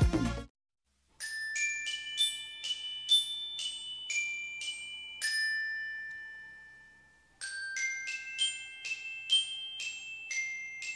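The dense background music cuts off about half a second in; after a short gap a light tune of struck, bell-like mallet notes plays in two phrases, the first ringing out and fading away around six seconds in.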